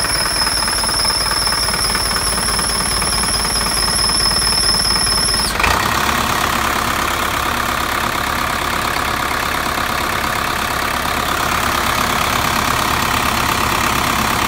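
Engine idling with the rapid ticking of an exhaust leak. A steady high whine cuts off about five and a half seconds in, and from then on the engine sound carries more of its middle range.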